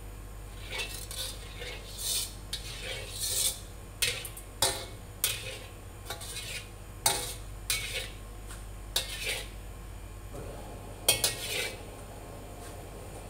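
Metal ladle and scrub brush scraping and clanking against a wok in irregular strokes as the hot wok is rinsed out with water between cooking steps. A steady low hum runs underneath.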